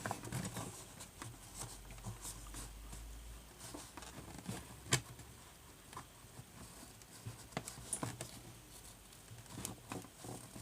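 Faint handling noises of a boxed product being worked free of its cardboard packaging: soft rustling with scattered small clicks and ticks, one sharper click about halfway through.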